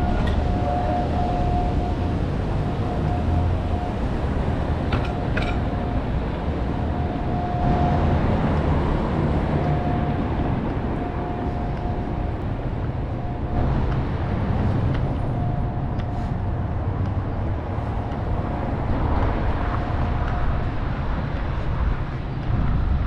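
City street traffic noise, a steady low rumble of passing vehicles, with a thin high whine that cuts out and comes back several times and a couple of brief sharp ticks.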